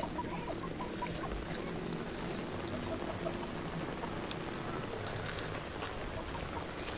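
Steady rain, heard as an even hiss.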